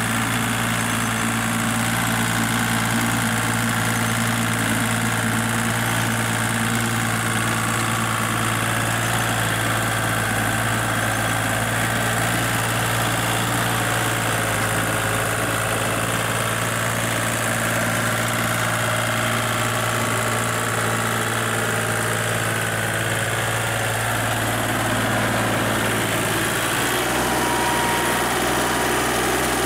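Orange Kubota compact tractor's diesel engine running steadily while it pulls an implement through wet field stubble. The engine note drops slightly near the end.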